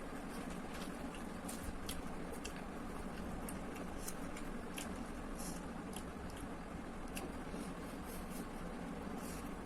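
Close-miked eating of instant noodles: soft, irregular mouth clicks and smacks of chewing and slurping, over a steady low hum.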